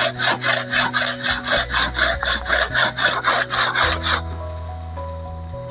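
Hand saw cutting through the dry wood of a hollowed-out stump in quick, even rasping strokes, about four or five a second, stopping about four seconds in.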